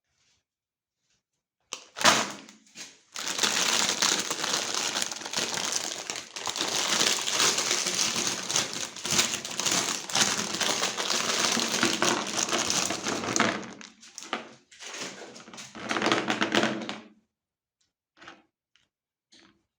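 Meat grinder crushing hard candy: a dense, crackling crunch that starts about two seconds in, runs nearly without a break for about eleven seconds, pauses briefly, comes back for a couple of seconds and then stops, leaving a few faint clicks.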